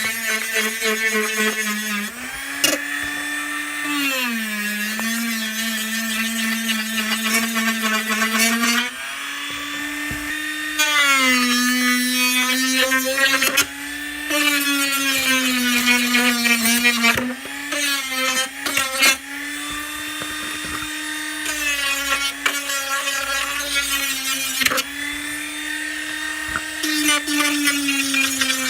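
Electric power tool motor running almost without a break, its whine sagging in pitch under load and picking back up several times, with a few short knocks along the way.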